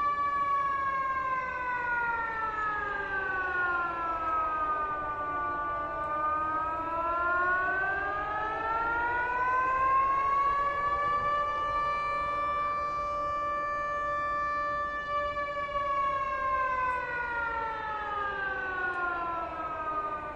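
Outdoor civil-defence warning siren wailing. It holds a high tone, slowly glides down and back up over several seconds, holds high again, then slides down near the end.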